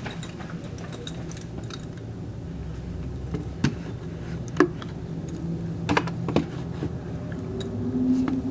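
Closed-room background noise: a low, steady rumble with a few scattered sharp clicks and knocks, and a faint low hum rising near the end.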